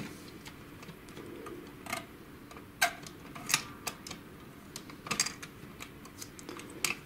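Irregular sharp plastic clicks and ticks from an HP LaserJet 5L/6L paper pickup assembly worked by hand: the pickup roller is turned and the paper pusher plate tried, to check that the pusher works and the roller turns.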